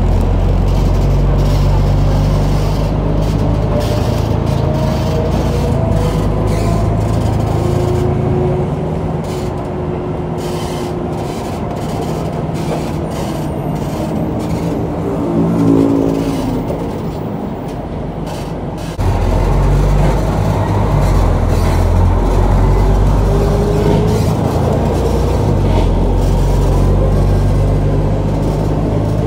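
Engine and road noise inside a moving city bus, the engine note rising and falling as it drives. It eases off for a stretch in the middle, then comes back loud abruptly about two-thirds of the way through.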